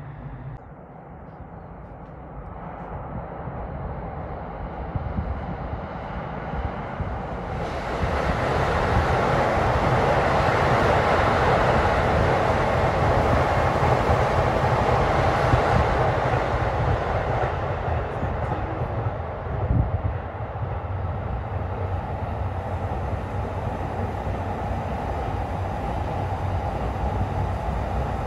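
A green-striped JR commuter electric train running past close by on a curved viaduct. The rolling and motor noise swells from about two seconds in, is loudest for several seconds in the middle, then eases to a steady running noise as a Shinkansen and another commuter train pass near the end.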